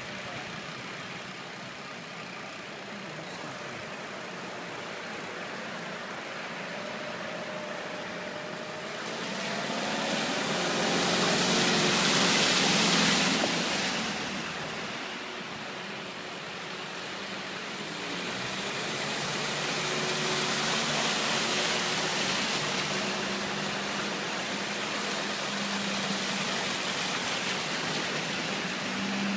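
Vehicles driving through floodwater on a road, tyres swishing through the water over a steady rush. The noise swells loudest about ten seconds in. A low engine hum grows near the end as a van comes through the water.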